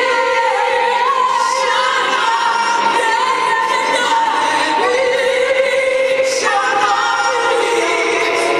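A woman singing a slow gospel song through a microphone, holding long notes and sliding between them.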